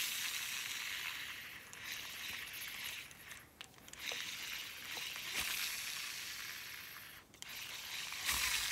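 Shimano Exsence DC baitcasting reel's spool spun freely several times, each run a hissy whir that tails off as the spool slows. The digital-control magnetic brake's usual sound is only faintly there, a fault the owner has had since a backlash.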